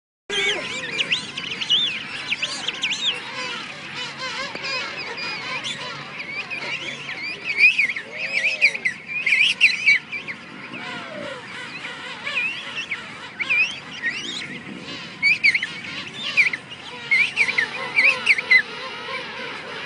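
Juvenile king penguins calling in a colony: many overlapping high, wavering whistles, with louder bouts about eight to ten seconds in and again later on.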